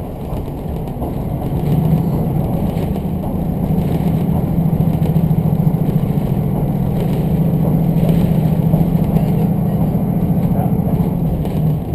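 Diesel railcar heard from inside the cabin: a steady engine drone comes in about a second and a half in and holds under power over the constant rumble of wheels on the rails, then drops away near the end.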